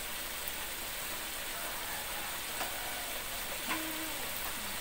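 Sweet-spicy sauce with white broccoli and tofu simmering and sizzling in a wok, a steady hiss with a few faint ticks. A short faint voice sound comes near the end.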